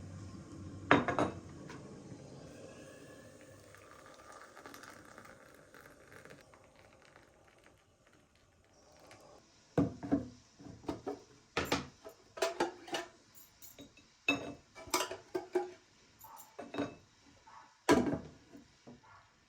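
Kitchen clatter of dishes and utensils being handled: a sharp knock about a second in, then a quieter stretch, then a string of irregular clinks and knocks in the second half.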